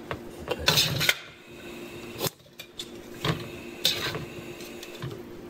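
A few scattered knocks and clicks of kitchenware being handled, over a steady low hum.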